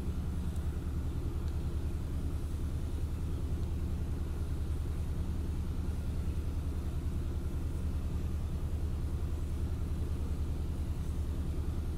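Steady low background hum, even in pitch and level, with no distinct knocks or clicks.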